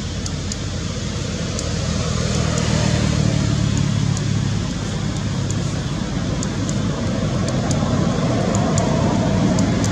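A motor vehicle's engine running steadily, slowly getting louder, with scattered faint sharp clicks over it.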